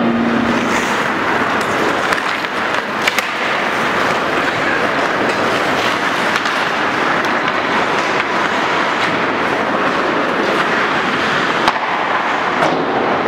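Ice hockey in play: a steady scraping hiss of skates on the ice, with a few sharp clacks of sticks or puck about three seconds in and twice near the end.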